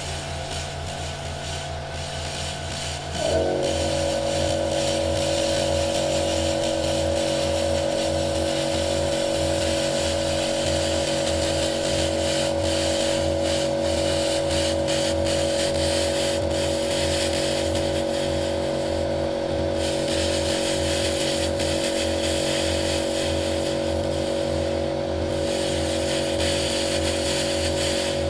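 A 200 W pulsed laser cleaning machine strips white paint from a car panel, giving a steady buzzing hum with a fine crackle. About three seconds in it turns louder and its pitch drops slightly.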